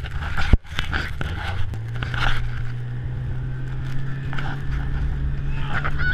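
Sled runners scraping and rattling over packed snow, with frequent knocks as the sleds jolt over bumps. A steady low hum joins in about two seconds in.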